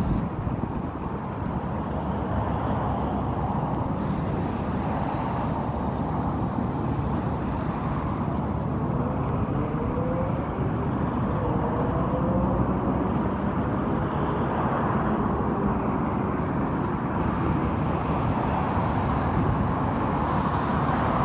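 Steady outdoor background rumble, with a few faint gliding tones about halfway through.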